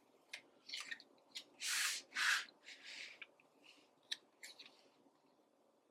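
Handling of planner stickers and paper: light ticks and taps, with two short papery swishes close together about two seconds in, as a sticker is peeled from its sheet and placed.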